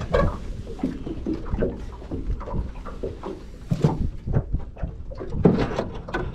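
Irregular clicks, knocks and rustles of fishing-rod, reel and hand handling as a crappie is reeled in, lifted aboard and unhooked, over a low steady rumble.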